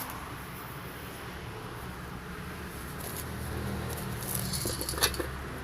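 Low rumble of the phone being carried and handled, with a few light clicks and rattles about four to five seconds in.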